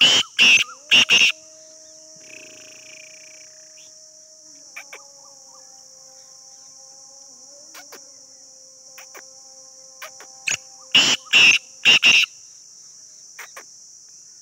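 Caged black francolin calling twice, about ten seconds apart, each call a quick run of four or five loud notes. A steady high insect drone runs underneath.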